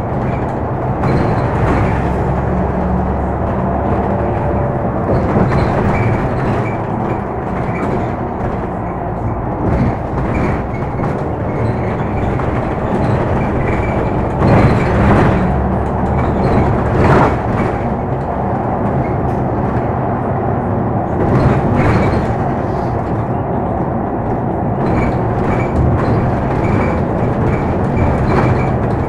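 Cabin noise of a Credo BN 12 city bus on the move: a steady engine drone with road noise, broken by a few knocks and rattles from the body.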